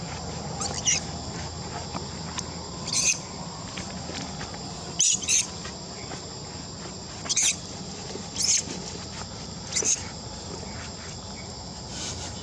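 Steady high-pitched insect drone, broken by short, sharp, high-pitched squeaks every one to three seconds, about eight in all, which are the loudest sounds.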